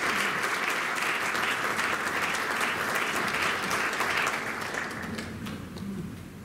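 Audience applauding, steady at first and dying away about five seconds in.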